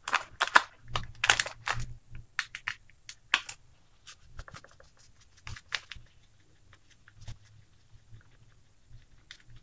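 Plastic spice packet being handled: irregular crinkles and small clicks, thick in the first two seconds and thinning out after about six.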